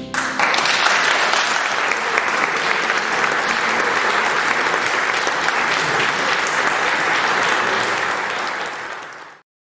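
Audience applauding steadily as the final organ chord dies away; the applause cuts off abruptly near the end.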